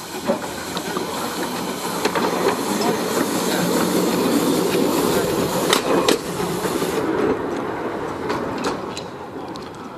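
Small narrow-gauge Hunslet saddle-tank steam locomotive running past at low speed: steady hiss of steam with clanks from its wheels and motion. It grows louder to a peak mid-way, with two sharp clanks about six seconds in, and the hiss drops away at about seven seconds.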